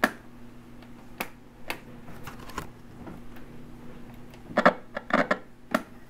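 Push buttons on the tuner of a Philips 3-in-1 stereo system being pressed, giving sharp mechanical clicks: a few spaced apart, then a quick run of several about four and a half to six seconds in. A faint steady hum sits underneath.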